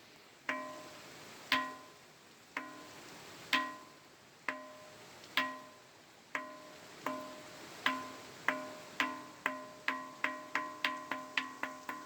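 A ringing stone being struck again and again, each blow giving the same short, clear pitched note that dies away quickly. The strikes come about once a second, then speed up to about three a second from around seven seconds in.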